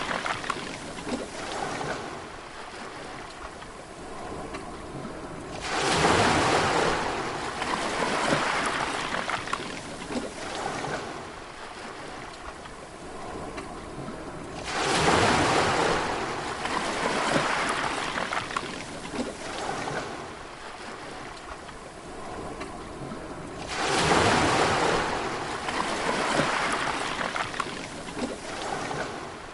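Sea waves breaking and washing back, with a large wave crashing about every nine seconds, three times in all. Each crash rises quickly, then fades into a steady wash.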